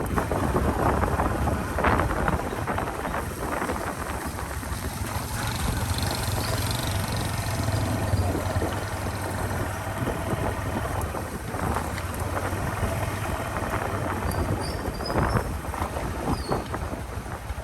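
A motor engine running steadily, with wind noise and occasional knocks or gusts on the microphone.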